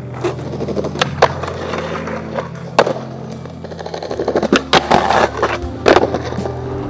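Skateboard on concrete and stone: wheels rolling, with sharp clacks of the board popping and landing, and a dense run of clacks and scraping about four and a half to six seconds in. Steady background music runs underneath.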